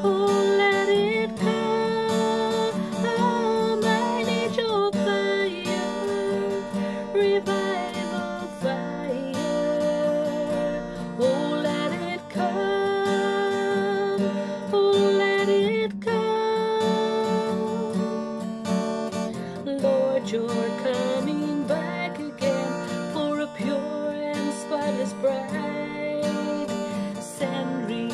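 A woman singing a worship song while strumming an acoustic guitar, her voice carrying the melody over steady strummed chords.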